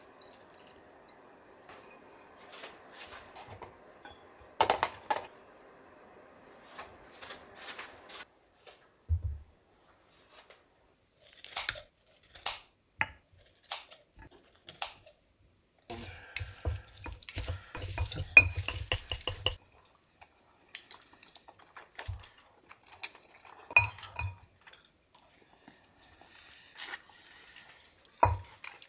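Irregular clicks and clinks of tableware: metal tongs and kitchen scissors working on grilled short ribs on a serving plate, and chopsticks against a bowl. A dense run of quick clicks comes a little past the middle.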